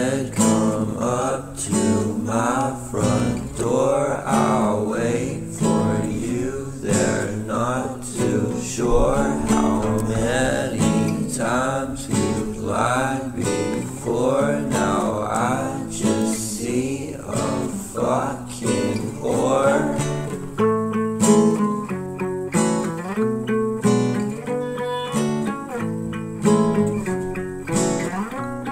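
Background song of strummed acoustic guitar. A singing voice runs over it for about the first twenty seconds, then the guitar carries on alone.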